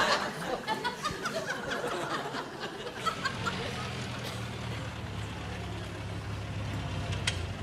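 Audience laughter tailing off, then the engine of a small open-top sports car running low and steady as it drives up. A single sharp click comes near the end.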